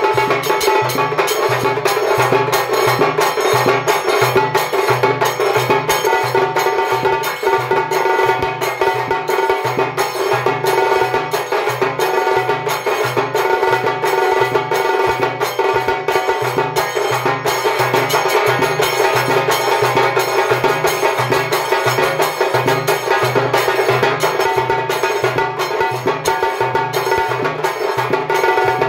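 A tassa drumming ensemble plays: several tassa drums beaten with thin sticks in fast rolls, over a large bass drum thumping about twice a second, with hand cymbals ringing along. The rhythm is loud and keeps going without a break.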